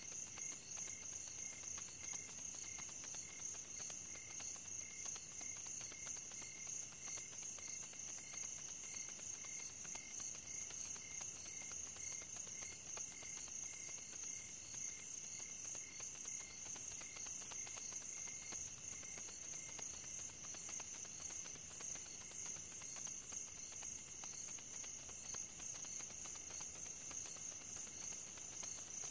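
Crickets chirping at night: a steady high trill, with a lower chirp repeating at an even pace.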